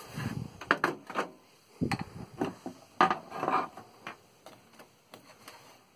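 Irregular clicks and knocks from an Apple Lisa 2's beige plastic case being gripped and turned around by hand, the loudest about three seconds in.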